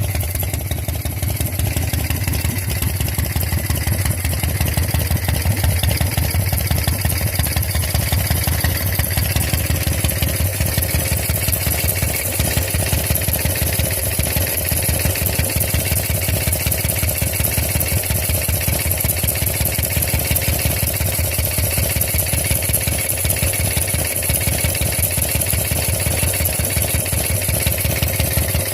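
Harley-Davidson Shovelhead air-cooled V-twin idling steadily, with a steady hissing over the engine note. The hiss comes from a leaking pushrod tube base seal.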